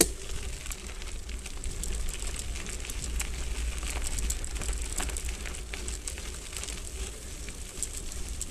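Hardtail mountain bike rolling over a dirt and gravel track: tyres crunching, with many small clicks and rattles, over a steady low rumble.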